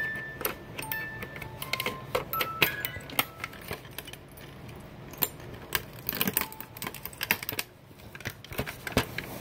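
Toy being handled up close: rapid, irregular clicks and rattles, with a few short electronic beeps at different pitches, mostly in the first three seconds.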